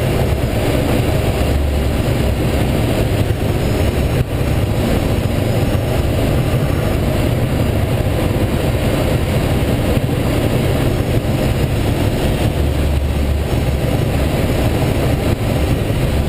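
Steady rush of air around the cockpit of a Schweizer SGS 2-33A glider in flight, unpowered, with a low rumble of wind buffeting the head-mounted camera's microphone.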